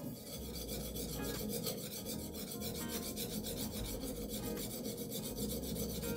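Steel knife blade being rubbed back and forth on a coarse #150-grit sharpening plate, a gritty rasping in rapid, evenly repeated strokes.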